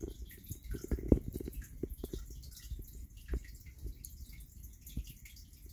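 Giant land snail rasping at a raw carrot as it feeds: irregular soft clicks and crackles, with a louder click about a second in and another just past three seconds.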